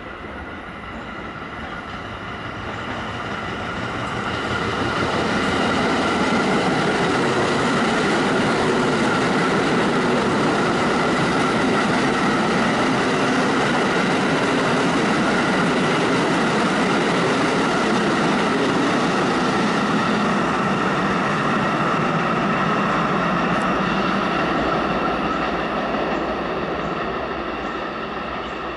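Westinghouse-Amrail R68 subway train passing at speed without stopping, the rumble of its wheels on the rails growing over the first five seconds, holding steady for about twenty seconds, then fading near the end, with a steady high whine over it.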